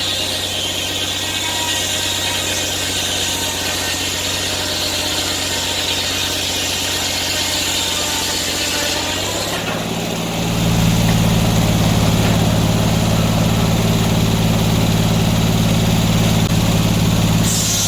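Sawmill engine running steadily. About ten seconds in it gets louder, with a stronger low drone.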